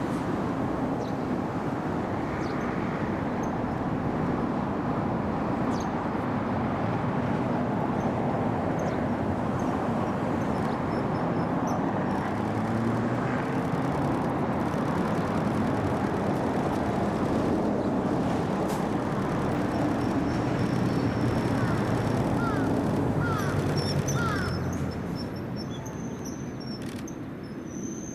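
Steady rumble of passing vehicle traffic with a low engine drone, easing off about 25 seconds in. A thin high bird call sounds near the end.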